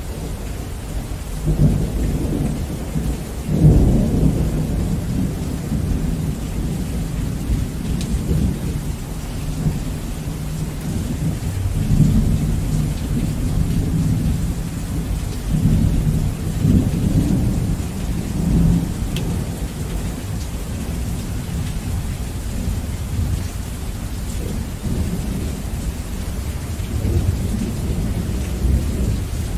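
Heavy rain falling steadily, with low rolling thunder that swells and fades several times, loudest about four seconds in.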